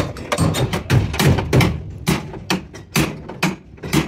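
Quick hand-hammer blows on a truck cab's steel door frame, about four or five sharp metallic knocks a second.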